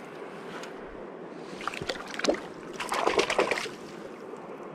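River water running steadily, with two short bursts of splashing in the middle, the second and louder one about three seconds in.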